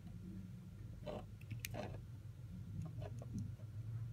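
Faint scattered clicks and brief rustles of hand handling over a low steady hum.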